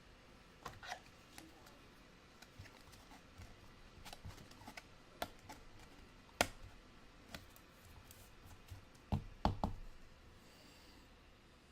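Soccer trading cards and pack wrappers being handled, with scattered light clicks and taps and a few louder knocks about nine seconds in.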